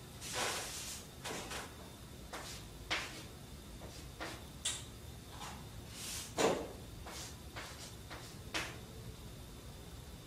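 Chalk writing on a blackboard: short, irregular scratches and taps of the chalk, the strongest stroke about six and a half seconds in.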